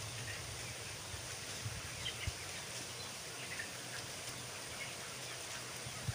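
Steady low hum and hiss of a closed-house broiler barn's ventilation, with a few faint, scattered peeps from a flock of 20-day-old broiler chickens.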